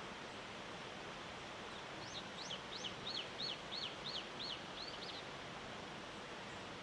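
A small songbird sings one phrase of about nine quick, high notes, each sliding downward, at roughly three notes a second. It sings over a steady background hiss.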